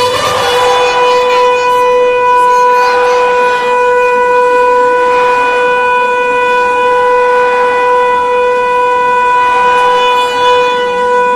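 A Border Security Force soldier's long drawn-out command shout, amplified over the public-address loudspeakers. It starts about half a second in and is held on one steady pitch for over ten seconds.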